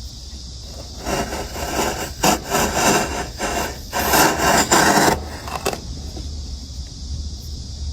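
A hand tool scraping and rubbing against wood in a run of irregular strokes, starting about a second in and easing off a little before six seconds, over a steady low hum.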